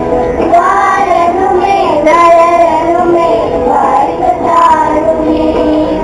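Children singing a song with musical accompaniment.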